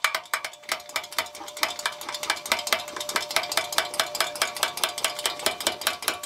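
Hand pump of a vintage Primus paraffin stove being worked quickly, an even clacking of about six or seven clicks a second, raising the pressure in the fuel tank so the lit burner keeps getting fuel.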